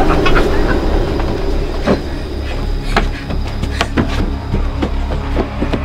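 A deep, steady rumble with scattered irregular knocks and clicks over it from about two seconds in.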